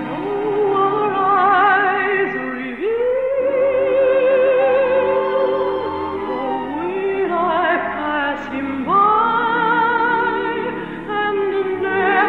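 Operatic soprano voice singing long held notes with a wide, even vibrato, sliding up into some of them. The sound is cut off above about 4 kHz, as on an old radio transcription.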